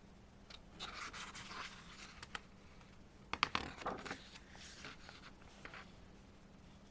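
Glossy pages of a photo book being turned and handled: paper rustling and rubbing in a few short swells, with some sharp clicks. The loudest comes about three and a half seconds in.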